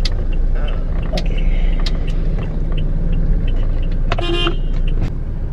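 Car idling, heard from inside the cabin as a steady low rumble, with one short car-horn toot of about half a second a little past four seconds in.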